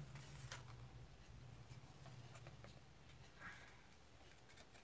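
Near silence, with a few faint clicks and rustles of plastic electric-kettle base parts being handled.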